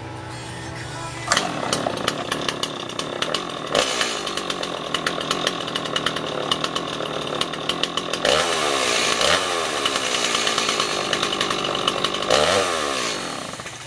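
Stihl MS260 two-stroke chainsaw catching about a second in and running with a fast ticking idle. It is revved up and down twice, about eight and twelve seconds in, and dies away near the end. It fires right up and runs well.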